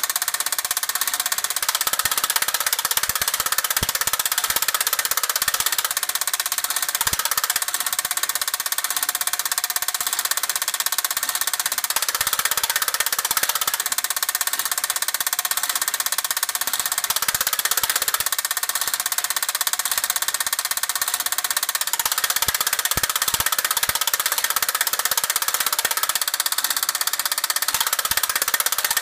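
Late-1960s Monotype 31-channel electronic tape punch perforating a paper ribbon: a steady, rapid mechanical chatter of punch strokes as the ribbon is stepped through, with an occasional sharper click.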